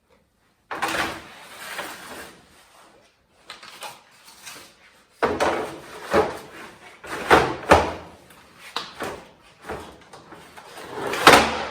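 Clattering and knocking of several kitchen items being picked up and gathered by hand, in a run of short, irregular knocks. The loudest knock comes near the end.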